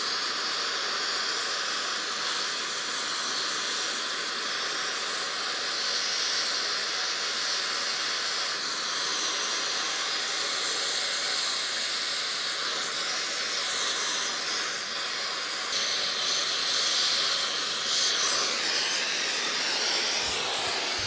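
Brazing torch flame hissing steadily as it heats a braze build-up on a broken cast-iron casting, a little louder and brighter in the last few seconds.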